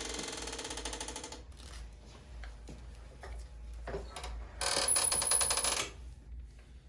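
Motorised high-low chiropractic table running in two short buzzing bursts, the first cutting off about a second and a half in and the second coming near the end, as the table is lowered and positioned with the patient on it.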